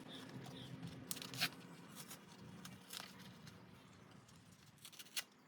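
Faint handling sounds: a few short, sharp rustles and clicks of plastic packaging being torn and worked open around a new spark plug.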